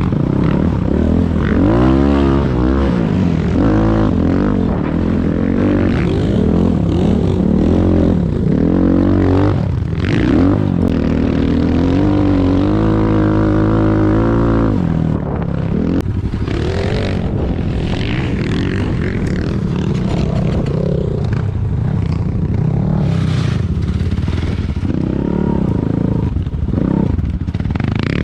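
Enduro motorcycle engine being ridden off-road, its revs rising and falling every second or two with throttle changes. About halfway through it holds a steadier, higher pitch for a few seconds, then drops back to lower, uneven revving.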